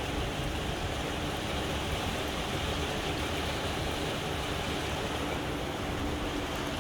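Steady rushing noise, even throughout with no distinct events.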